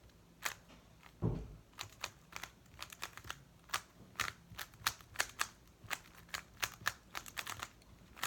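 Plastic speed cube being turned by hand: a string of sharp, irregular clicks at about three to four a second as the layers snap into place, with one dull thump about a second in.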